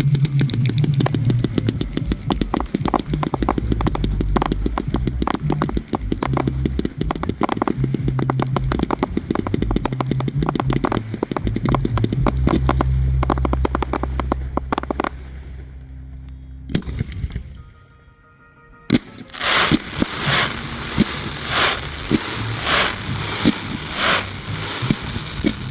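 Fireworks crackling in a dense, rapid string of pops for about fifteen seconds over steady low music, then dying away. After a short lull, regular sharp crunching thumps follow, about one and a half a second.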